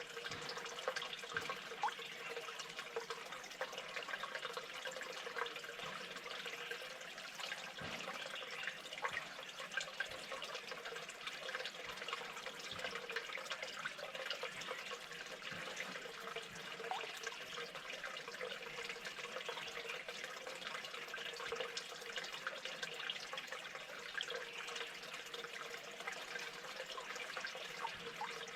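Steady running, trickling water with many small crackles and drips, without a break.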